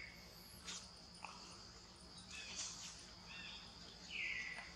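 Steady high-pitched insect drone, with a couple of faint clicks early and one short, high call about four seconds in.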